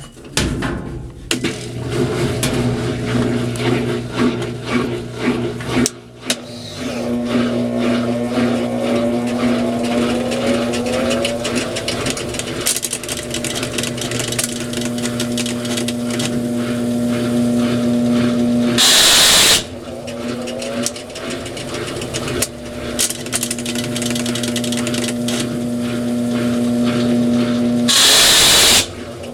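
Brastemp top-loading washing machine (9 kg, 2007) in its spin cycle: a steady motor hum with a rapid grinding rattle over it, the pitch rising as the drum speeds up. Twice there is a loud hiss lasting about a second. The grinding is the fault the machine is being recorded for.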